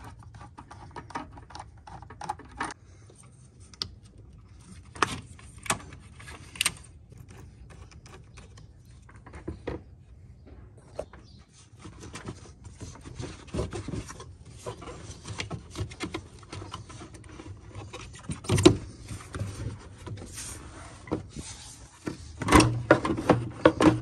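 A screwdriver loosening hose clamps and a plastic air intake duct being worked loose by hand on a Chevy Silverado's 5.3 V8. Scattered clicks, rubbing and knocks, with one sharp knock about three-quarters of the way through and a quick run of knocks near the end.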